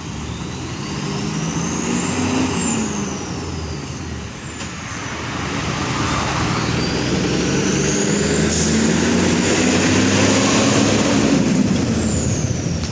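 Mitsubishi Fuso Super Great's 6M70 straight-six turbodiesel revving up and dropping back twice, the second rise longer, with a turbo whistle climbing and falling along with the revs. A short hiss about eight and a half seconds in.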